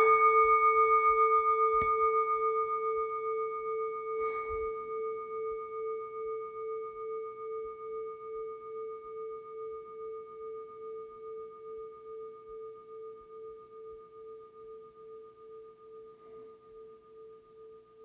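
A meditation bell struck once, ringing on with a wavering, pulsing hum that slowly fades.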